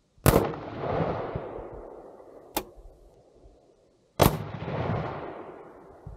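Two rifle shots about four seconds apart from a CQ-A M4-style carbine in .223 Remington, each followed by a long echo that dies away over a couple of seconds. A single sharp click falls between them.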